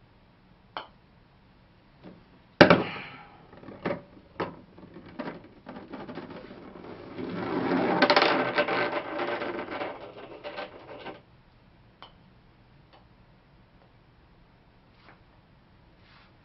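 A putter clicks sharply against a golf ball, the loudest sound in the clip, about two and a half seconds in. A few smaller knocks follow as the ball runs into the putting mat's cup and return. The ball then rolls back along the hard plastic return gutter in a rising rumble that is loudest about eight seconds in and stops about eleven seconds in.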